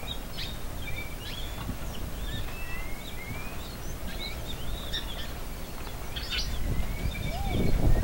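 A flock of small birds, red-cowled cardinals among them, chirping and calling with many short chirps and whistled rising notes, over a steady low rumble that swells near the end, when a few lower arched notes come in.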